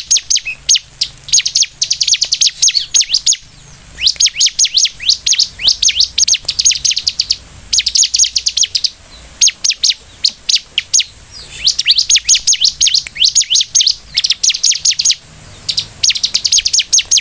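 Bar-winged prinia (ciblek) singing persistently: rapid runs of sharp, high, downward-slurred notes in phrases of about a second, repeated after short pauses.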